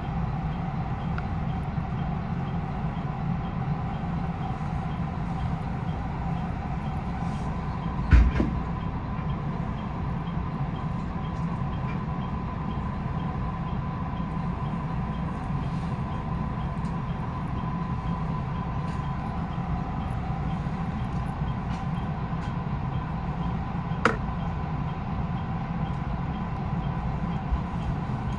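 223-series electric train standing still while held at a signal, its onboard equipment humming steadily with a thin steady tone above the low hum. A sharp knock comes about 8 seconds in and a smaller one near 24 seconds.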